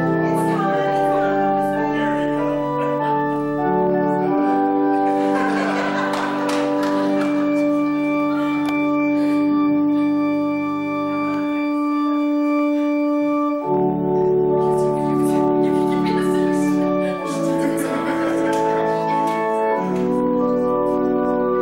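Organ playing slow, sustained chords. One chord is held for several seconds midway.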